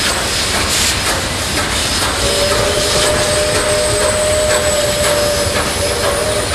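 Model steam train running: a steady, noisy rush with a steady mid-pitched whine and scattered light clicks.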